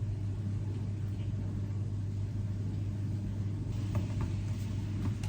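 A steady low hum with faint background noise, and a few faint light taps near the end.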